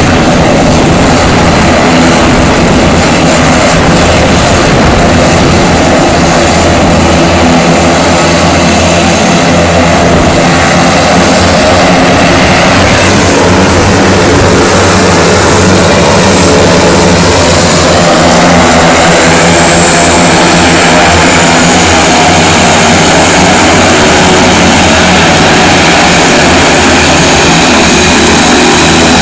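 Several single-engine turboprop aircraft taxiing close by, their engines running loud and steady: a propeller drone with a high turbine whine on top that grows a little louder about two-thirds of the way in as the nearest plane comes closer.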